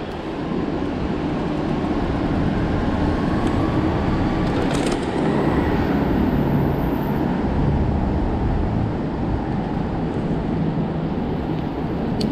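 Steady low rumble of vehicle traffic, mixed with wind buffeting the microphone of a moving bicycle.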